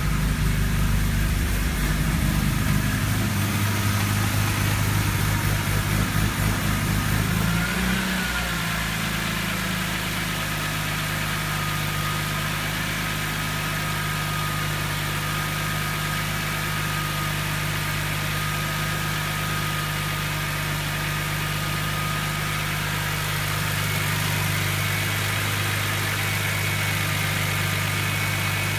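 Engine idling roughly and unevenly shortly after a start, then about eight seconds in the idle changes and settles into a smooth, steady run. This is the rough idle that lasts the first 90 to 120 seconds after starting.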